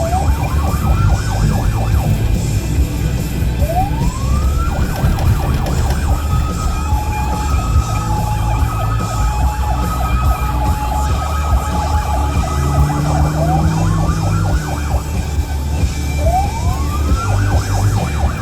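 Police car siren wailing, rising and falling about every four seconds, over a steady low rumble of engine and road. A pulsing two-note tone sounds through the middle.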